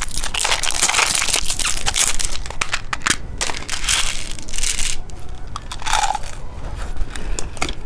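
Plastic candy packaging crinkling and crackling in irregular rustles as a packaged phone-shaped candy is handled.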